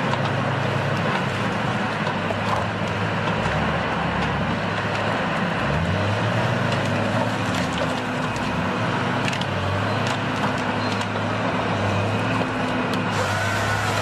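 Engine of heavy log-handling machinery running steadily, its low note shifting up and down as the machine works, with a few light knocks.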